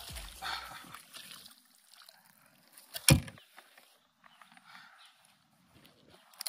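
A hooked peacock bass splashing at the surface beside a kayak, then a single sharp knock about three seconds in, the loudest sound here.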